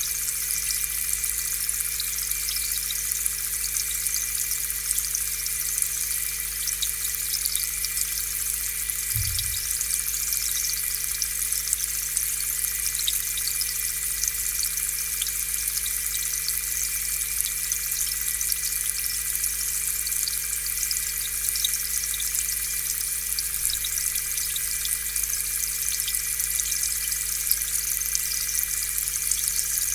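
Aquarium air pump humming steadily while its air bubbles up through the tank water, a dense fizzing crackle of bubbles over the pump's hum. One brief low thump about nine seconds in.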